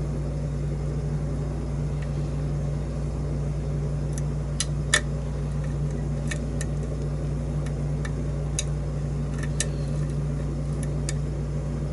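A lock pick working the pins of a challenge lock under tension: a scattering of small, sharp metallic clicks, about a dozen, starting about a third of the way in, over a steady low hum.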